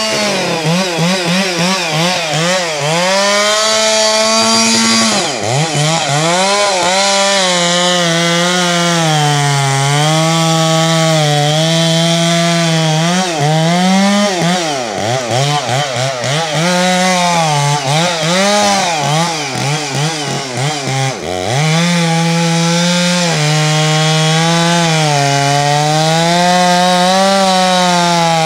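Chainsaw cutting into the base of a large tree, running at high revs, its engine pitch sagging under load as the chain bites and climbing back again and again, with two deep drops about five and twenty-one seconds in.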